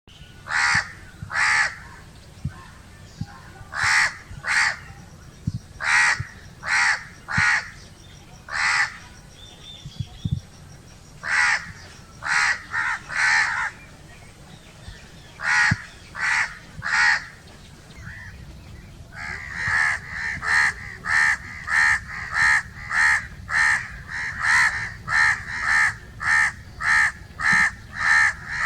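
Crows cawing: short, harsh caws in twos, threes and fours with gaps between them, then, about two-thirds of the way in, a steady unbroken run of caws at about one and a half a second.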